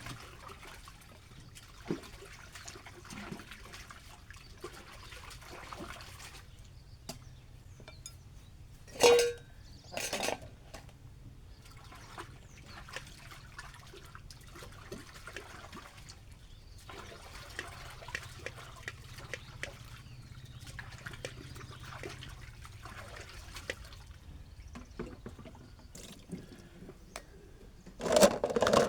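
Dishes being washed by hand: water trickling and splashing, with small clinks of utensils and a loud ringing clink about nine seconds in, followed by a second knock. A louder sound starts right at the end.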